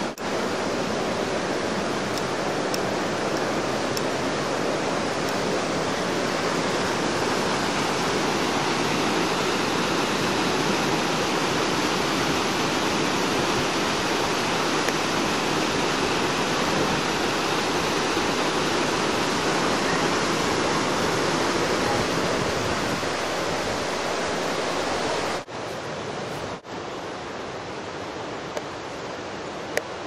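Waterfall's white water rushing steadily. It briefly cuts out twice near the end, then runs on a little quieter.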